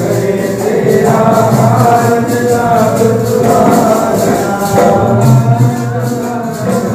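Sikh devotional kirtan: a harmonium and a male voice singing, with a jingling percussion keeping time.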